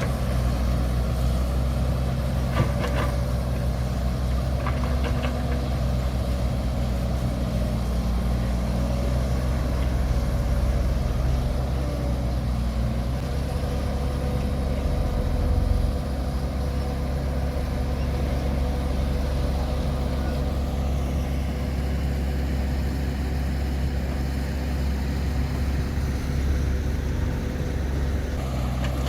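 Diesel engine of heavy earthmoving machinery running steadily at a low, even pitch, with a couple of faint clanks a few seconds in.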